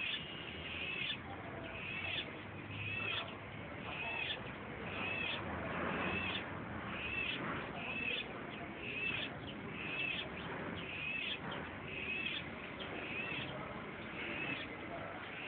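Cicadas calling in the trees: a short high rising-and-falling note repeated about once a second, over a steady hiss.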